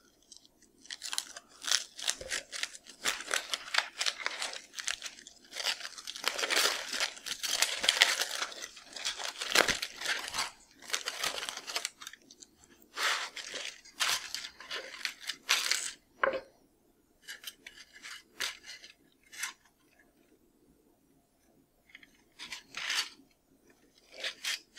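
Aluminium foil crinkling and tearing as it is peeled open from around baked potatoes, dense for most of the first two-thirds, then in shorter, sparser bursts.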